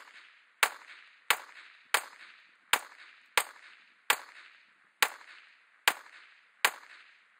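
Ruger SR9 9mm pistol fired nine times in steady succession, about one shot every three-quarters of a second and slowing slightly near the end, each shot with a short echoing tail. It fires through without a stoppage, a check that the ammunition is not at fault for the jams in the Glock.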